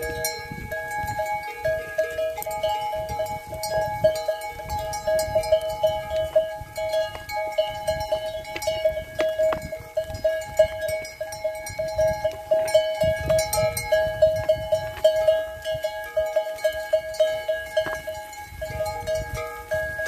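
Many goat bells ringing and clanking together in an uneven pulse as a herd of goats walks, with scattered sharp clicks over them.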